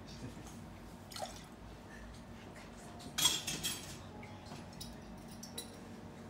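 Small drips and clinks of bar work: liquid poured into a metal cocktail shaker tin, then a brief, louder clatter of glass and metal about three seconds in.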